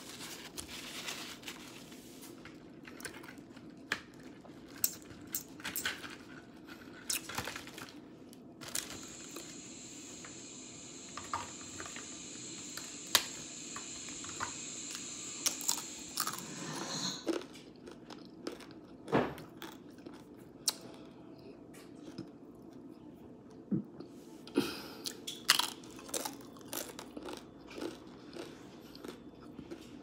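Close-miked chewing of crunchy hard-shell tacos: irregular crisp crunches and bites with wet mouth sounds, some crunches sharp and loud.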